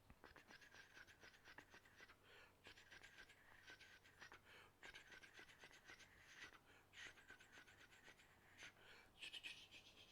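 Faint rapid scratching in repeated bursts of a second or two, a dense train of fine clicks.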